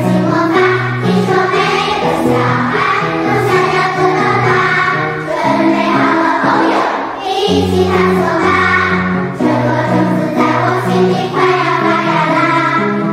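Children's choir of second-grade pupils singing a song together, their high voices over an accompaniment that holds low notes beneath them. The voices break off briefly about seven seconds in, then resume.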